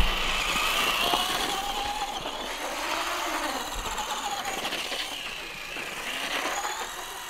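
Traxxas RC truck's motor whining as it drives, its pitch rising and falling with the throttle.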